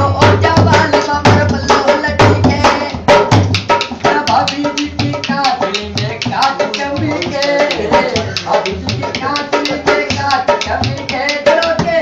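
Dholak, a two-headed barrel drum, played by hand in a fast, steady rhythm. Deep bass strokes fall about twice a second under quick sharp slaps, with a wavering high melody line over the drumming.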